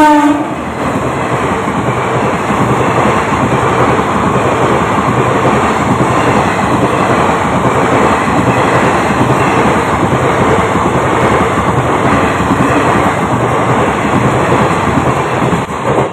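An electric-locomotive-hauled express train passing at speed over a level crossing, its coaches and wheels on the rails making a loud, steady rumble. It opens with a brief pitched tone and cuts off suddenly near the end.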